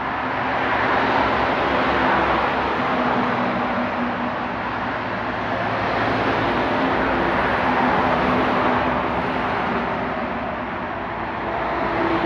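Highway traffic passing below: a steady rush of tyre and engine noise, with the low drone of an approaching semi-trailer truck. It swells about a second in and again around eight seconds.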